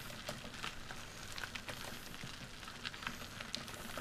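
Trike tyres rolling over an unpaved trail: a steady rolling rush with an irregular crackle of small clicks from grit and stones under the wheels.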